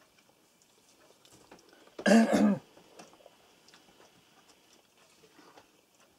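A man coughs once, a short harsh cough about two seconds in, among faint small clicks from the table.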